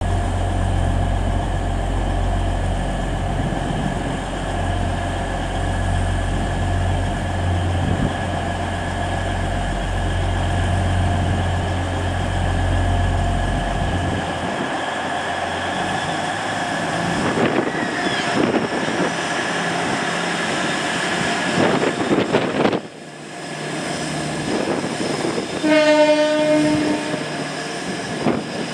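Class 180 diesel multiple unit with Cummins diesel engines: a deep, steady idle for about the first half, then engine and transmission noise rising and shifting as the train pulls away. One horn blast of about a second sounds near the end.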